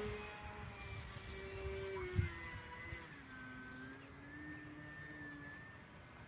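RC Spitfire model airplane's motor and propeller whining in flight, the pitch holding and then dropping about three seconds in as the throttle or distance changes. A short low thump sounds a little over two seconds in.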